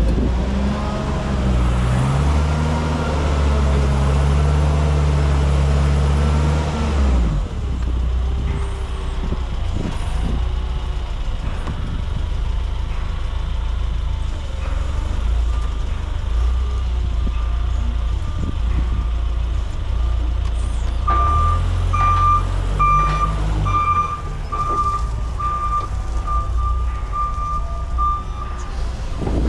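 Forklift engine running, revving for the first several seconds while a low engine drone continues underneath. About three-quarters of the way through, the forklift's reverse alarm sounds a repeating string of beeps for about seven seconds as it backs away from the trailer.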